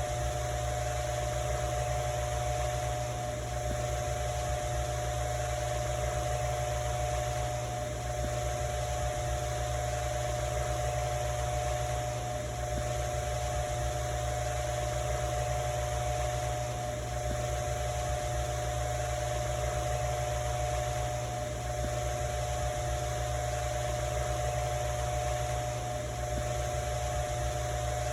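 Ventisol electric fan running steadily: a constant motor hum with a steady mid-pitched whine over an even rush of air.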